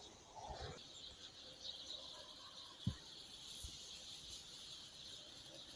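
Faint, steady high-pitched chirring of insects, with one soft low thump about three seconds in.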